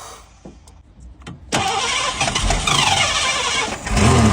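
A 1987 Ford's fuel-injected engine starting after a few clicks, about a second and a half in, then running with the revs rising and falling, and a heavier low rumble near the end.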